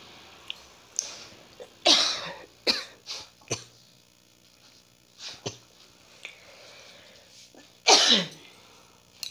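Beagle sniffing and snorting through its nose in short, sharp blasts of air, about seven in all, the strongest about two seconds in and near the end, as it hunts by scent for something hidden.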